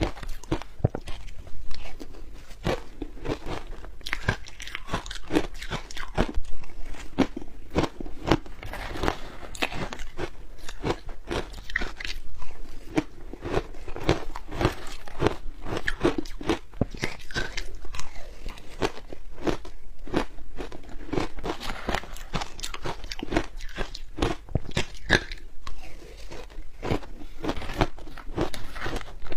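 Soft, crunchy ice being bitten and chewed close to the microphone: a steady, dense run of irregular crunches and crackles.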